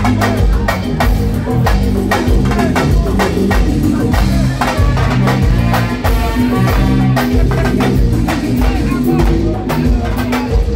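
Live band playing loud on stage in a soundcheck run-through: a percussion section of hand drums over drum kit, bass guitar and keyboard, with a steady rhythm of drum strikes.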